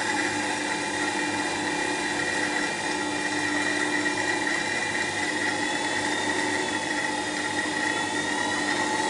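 Record Power WG200 wet-stone sharpening grinder running steadily with a motor hum, while a bowl gouge is sharpened against its water-fed stone.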